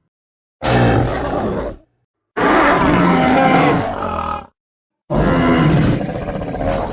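Sound-effect calls for the armoured dinosaur Euoplocephalus: three loud, deep calls, each lasting one to two seconds, with short silences between them.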